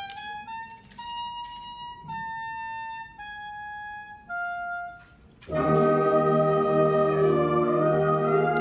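Brass band playing an overture: a solo wind instrument plays a slow melody of held notes, then the full band comes in loudly about five and a half seconds in.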